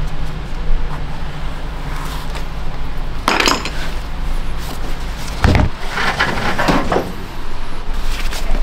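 Metal hand tools clinking and scraping against a leather boot as it is worked and turned, with a dull thump past the middle, over a steady low hum.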